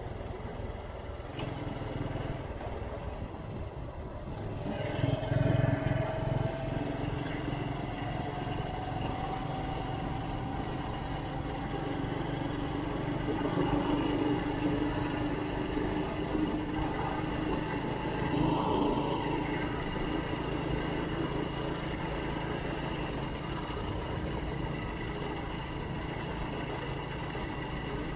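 Vehicle engine running on the move, with a rise in pitch and loudness about five seconds in as it picks up speed, and another brief swell later on.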